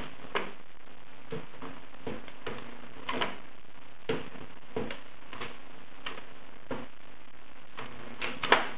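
Dent-repair stud welder clicking and snapping irregularly as he fires it again and again, trying to get a pin to weld to the car's body panel, with one louder snap near the end. A steady low hum runs underneath.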